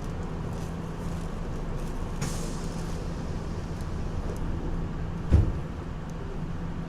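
Steady low rumble inside a Nagoya Municipal Subway 3000 series car, with the constant hum of its Mitsubishi pressure ventilation fans. A brief hiss comes about two seconds in, and a single heavy thump, the loudest sound, about five seconds in.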